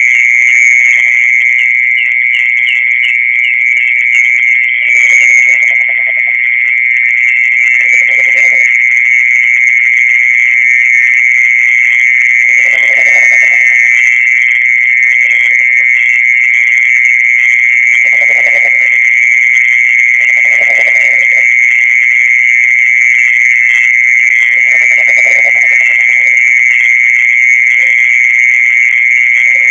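A steady, unbroken high-pitched trill of a mole cricket, the night chirring popularly taken for the song of the earthworm. A lower, softer call comes in briefly every few seconds.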